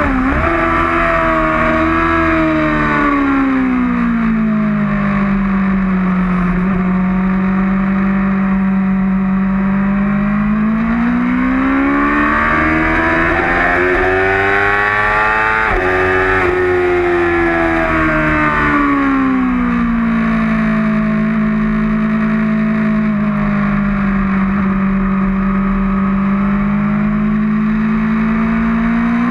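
A 2008 Yamaha R6's 600 cc inline-four engine heard on board, its revs dropping sharply at first, holding low and steady, climbing again about halfway, then dropping and holding low before rising near the end, over a steady rush of wind.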